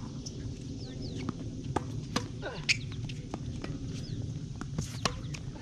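Tennis rally on a hard court: a string of sharp pops from rackets striking the ball and the ball bouncing, the loudest about two and a half seconds in, with a few short high squeaks among them.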